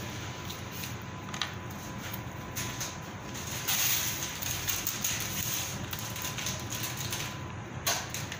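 Food-prep handling at a kitchen counter: a few short snips and clicks of kitchen scissors cutting fish, then a plastic bag rustling about four seconds in.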